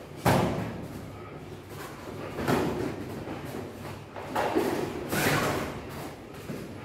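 Boxing gloves landing punches in sparring: a sharp smack about a quarter second in, then three more duller hits spread over the next few seconds.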